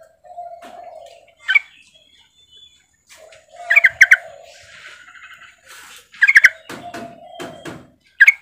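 Female yellow-vented bulbul (trucukan) calling: short, loud, sharp chirps, often in pairs, about every two seconds, with softer, lower notes between them.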